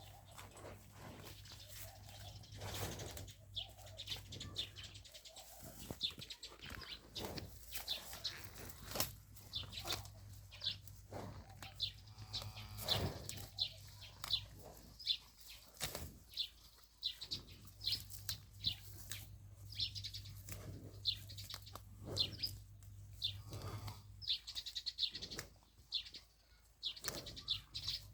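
A grazing animal tearing and chewing grass: short rustling rips, several each second, at an irregular pace.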